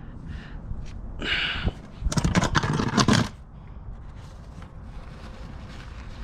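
An oil drain pan being scooted across the ground under a motorcycle: a short scrape about a second in, then a louder scraping clatter lasting about a second.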